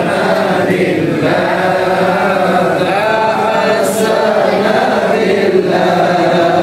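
A group of voices chanting together in unison, an Islamic devotional chant for the Prophet's birthday, in long held melodic phrases with short breaks between them.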